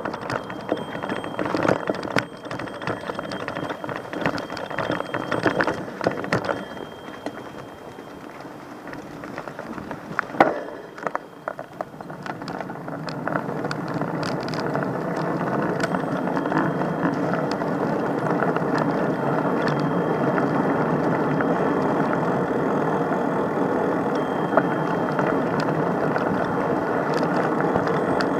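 Street vehicle and rolling-wheel noise: clattering and ticking at first, then a steady rolling rumble that builds from about halfway through.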